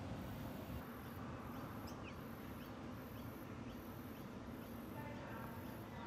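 Faint outdoor ambience: a low, uneven wind rumble, a high insect buzz that swells and drops in a slow, even rhythm, and a few short, faint bird chirps.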